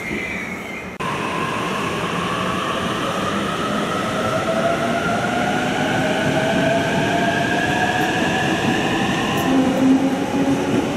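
Electric commuter train accelerating away, its traction motors giving a whine that climbs steadily in pitch; it starts abruptly about a second in.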